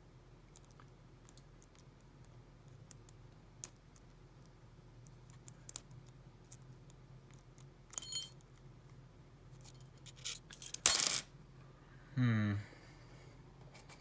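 Lock pick and tension tool working inside an American 700 padlock: faint scattered clicks and scrapes as the pins are probed, a brief ringing metal clink about eight seconds in, and a louder short scrape about eleven seconds in. Near the end comes a short low sound falling in pitch.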